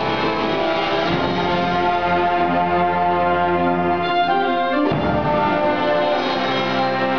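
Clarinet solo with an ensemble of wind instruments playing held chords, changing to a new chord about five seconds in.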